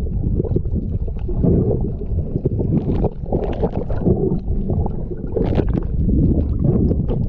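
Muffled underwater rumble and gurgling of water moving past a submerged camera, with a few brief bubble ticks.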